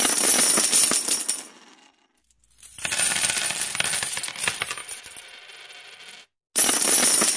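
Intro sound effect of dense, bright crackling and tinkling clicks in three bursts, the first two fading away, with short silent gaps between them.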